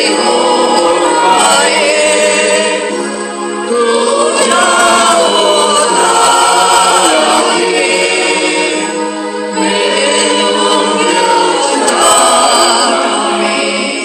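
Background music: a choir singing in long held notes, phrase after phrase.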